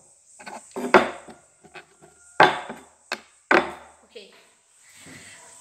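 Upturned cups being moved about and set down on a wooden table: a series of sharp knocks, three of them loud, about one, two and a half, and three and a half seconds in.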